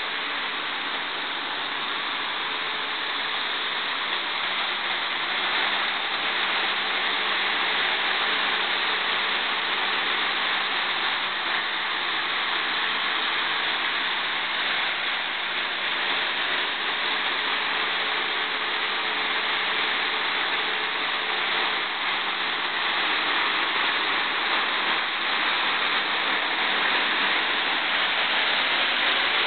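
Freshly overhauled Lycoming T53-L-13B turboshaft gas turbine running steadily: a loud, even rushing roar with a faint steady hum beneath, getting slightly louder after about five seconds.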